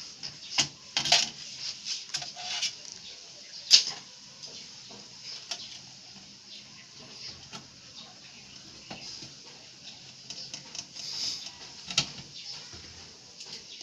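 Scattered sharp clicks and metallic clinks from screws, a screwdriver and parts being handled on a metal computer case, the loudest about a second in, near four seconds and near the end.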